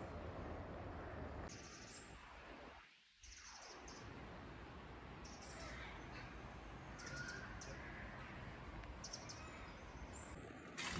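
Faint outdoor ambience: a steady background hiss with a few faint bird chirps, and a brief drop-out about three seconds in.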